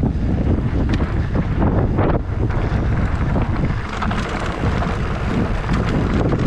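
Wind buffeting the microphone on a moving mountain bike, over a steady rumble of tyres on a dry, loose trail with constant small rattles and knocks from the bike.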